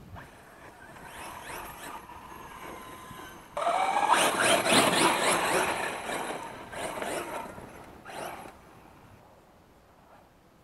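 Small brushless electric RC rally car driving hard on loose dirt. About three and a half seconds in it comes in suddenly loud, with a short rising motor whine and tyres scrabbling and spraying gravel. The sound fades in a few surges and is gone after about eight seconds.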